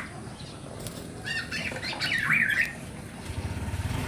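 Black-naped oriole chick giving a harsh, wavering squawk about a second in, lasting about a second and a half. A low rumble starts near the end.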